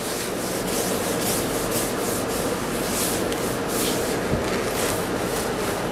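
Cloth rag rubbing in repeated strokes over a sanded epoxy-coated plywood boat interior, with a faint steady hum beneath.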